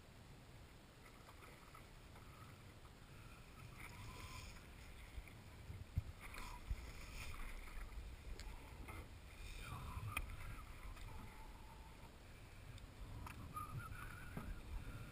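Faint water lapping against a small fishing boat, with low rumbling and a couple of sharp light knocks, about six and ten seconds in.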